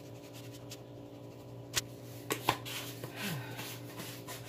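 Light clicks and taps of a plastic seasoning shaker being handled and shaken over a plastic bowl of sliced zucchini and squash, with a brief squeak just past the middle. A steady low hum runs underneath.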